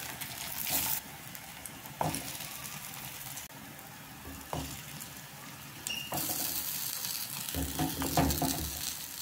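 Hot oil sizzling in a frying pan as slices of boiled potato are laid in, with a few brief taps as the slices go down. The sizzle swells and drops back a few times.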